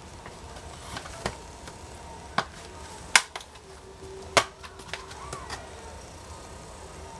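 Several sharp clicks or knocks at uneven intervals, four loud ones and a few fainter ones, over a faint steady hum.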